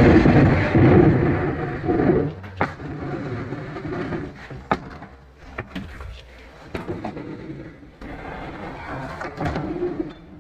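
Wooden armoire being pushed and rocked across a ceramic tile floor: a loud scrape for the first two seconds or so, then a run of knocks and clunks as it is shifted, and another quieter scrape near the end.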